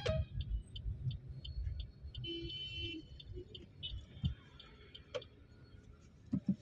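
Car turn indicator ticking steadily inside the cabin, over low engine and road rumble that eases after about two seconds.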